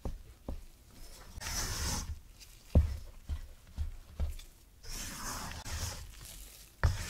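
Silicone spatula folding dry flour and cocoa into thick muffin batter in a stainless steel bowl: soft scraping, swishing strokes through the powder and batter, broken by several dull knocks on the bowl, the loudest about three seconds in and near the end.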